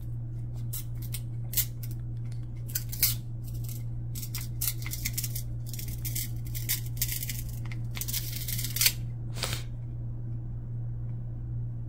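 Football trading cards being flicked and slid one past another in the hand, a run of short dry papery snaps and rustles that stops about nine and a half seconds in, over a steady low hum.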